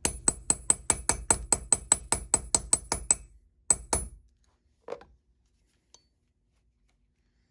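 A hammer tapping quickly on a steel rivet setter, about five light blows a second for three seconds, then two more after a short pause, each with a high metallic ring: a solid copper rivet's post being peened and domed over its burr. A single softer knock follows near the end.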